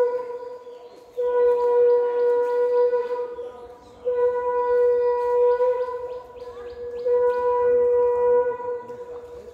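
A horn-like wind-instrument tone playing three long held notes on the same pitch. Each note lasts about two seconds, with about a second's break between them.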